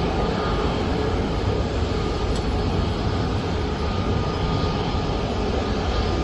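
Steady jet-engine roar from airliners: a Boeing 747 at takeoff power on its takeoff roll and a twin-engine airliner taxiing close by, with a deep rumble and a faint steady whine on top.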